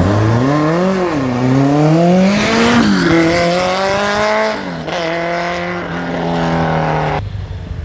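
Alpine A310 race car launching from a standing start and accelerating hard uphill, its engine pitch climbing and dropping at each of three upshifts, then holding steady before the sound cuts off abruptly near the end.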